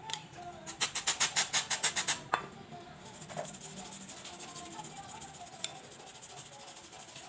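Background music with a fast, even shaker-like percussion rhythm, loudest for about a second and a half near the start, then fainter and steady.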